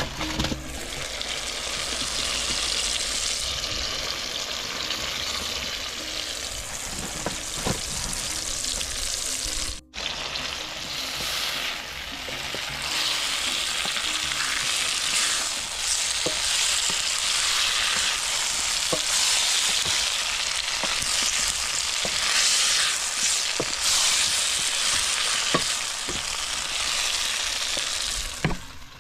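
Sweet potatoes sizzling in a pot of hot oil with an onion, tomato and spice paste, with a spoon stirring and scraping at intervals. The sizzle drops out briefly about ten seconds in.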